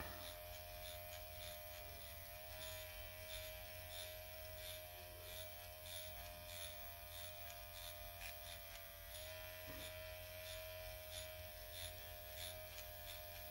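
Dr. Pen electric microneedling pen buzzing steadily as it is worked over the skin of the cheek, a faint even motor hum whose pitch shifts slightly now and then.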